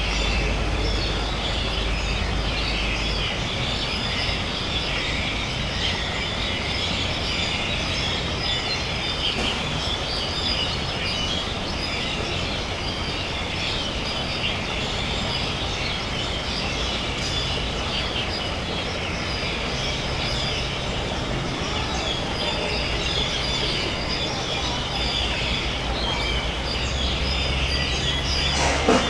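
Steady outdoor background noise: a constant low rumble under a dense, high-pitched chirring, with one short sharp sound near the end.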